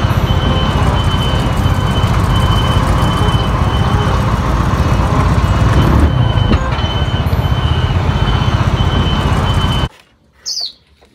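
Diesel engine of a large multi-axle mobile crane running as it drives past, a loud steady rumble with traffic noise, and a high warning beeper sounding over it the whole time. It all cuts off about ten seconds in.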